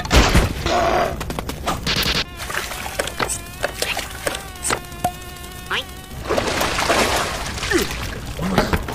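Cartoon sound effects: a hissing spray for about the first two seconds, then an insect-like buzzing that wavers in pitch, with scattered clicks and more hiss near the end.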